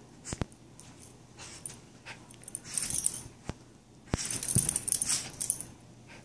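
Schipperke wrestling with a cushioned dog bed: irregular bursts of fabric rustling and scuffing, with a few sharp clicks, loudest about four to five and a half seconds in.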